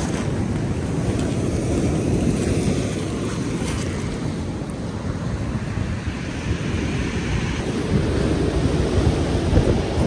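Ocean surf breaking and washing on a pebble beach, with wind buffeting the microphone as a steady low rumble; the surf swells louder near the end.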